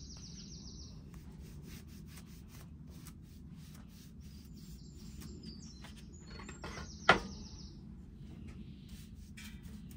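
Paintbrush rubbing undercoat onto a wooden table top in short scratchy strokes, with birds chirping in the background and one sharp knock about seven seconds in.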